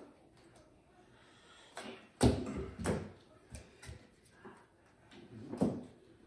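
Cards and hands knocking down on a plastic-covered tabletop during fast card passing: a handful of sharp taps and thumps, the loudest about two seconds in.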